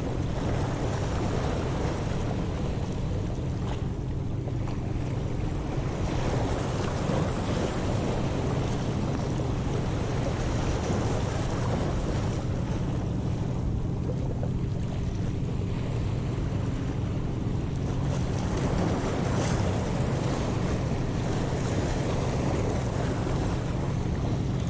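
Wind buffeting the microphone over sea waves breaking and washing against rocks; a steady rushing noise with a heavy low rumble.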